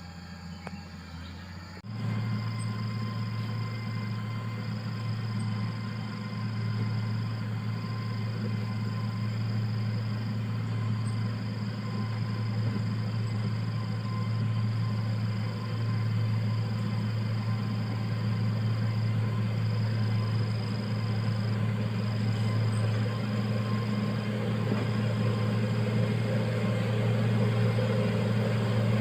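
Motor grader's diesel engine running steadily with a low drone; it comes in abruptly about two seconds in, after a quieter stretch, and slowly gets louder.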